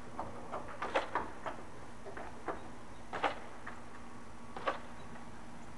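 Scattered sharp knocks and clicks at irregular intervals, some in quick pairs, loudest about a second in and just after three seconds.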